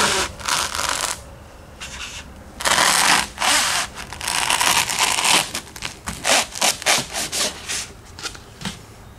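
Serrated knife sawing through a foam pool noodle in back-and-forth strokes, long strokes first and shorter, quicker ones in the second half.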